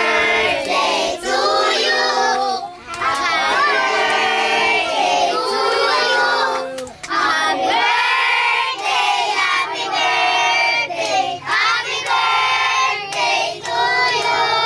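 A group of children singing together in chorus, with hands clapping along.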